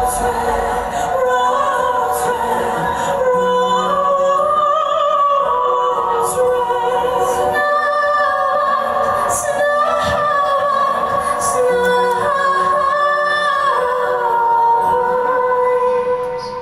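Two women singing together in harmony through a PA, on long held notes, with the low band accompaniment dropping away at the start so the voices stand almost alone. The singing fades out near the end.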